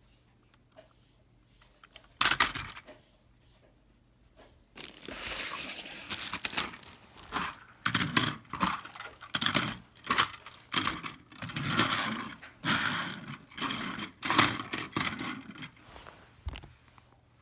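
Toy train packaging being handled: irregular crinkling and rustling of plastic and cardboard, with one sharp rustle about two seconds in and a long busy stretch of handling from about five seconds in.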